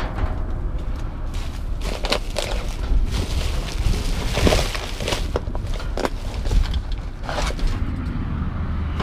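Plastic trash bags rustling in short bursts as gloved hands rummage through a dumpster, the loudest rustle about halfway through, over a steady low rumble.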